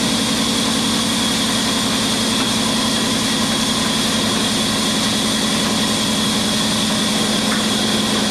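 An engine running steadily at a constant pitch, with a low hum and a strong hiss over it.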